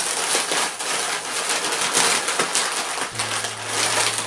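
Thin plastic carrier bag rustling and crinkling as a hand rummages through it among snack packets, a dense, continuous crackle.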